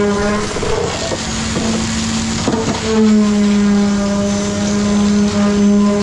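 Concrete pump truck running steadily during a pour, a loud pitched mechanical hum. The hum breaks off about half a second in and comes back near three seconds.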